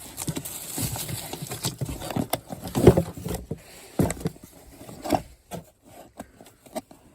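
A cardboard box being opened by hand, with irregular scrapes, rustles and knocks; the loudest thump comes about three seconds in.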